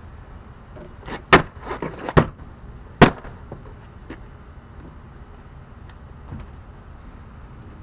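A few sharp knocks and snaps on the car door's interior trim as it is refitted: a quick cluster a little over a second in, then one loud snap at about three seconds.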